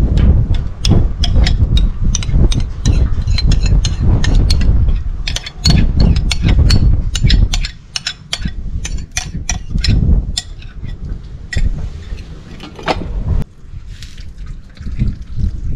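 A metal spoon scrapes and taps against a glass bowl as thick sour cream is scooped out, giving many sharp, irregular clicks over a low rumble. Near the end, water pours from an electric kettle into the skillet.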